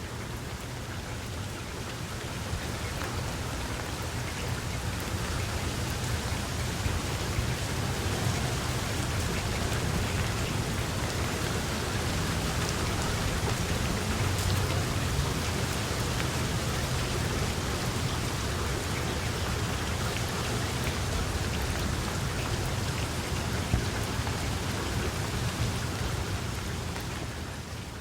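Steady heavy rain falling, a dense even hiss with a low rumble underneath. It swells slightly over the first several seconds and begins to fade out right at the end.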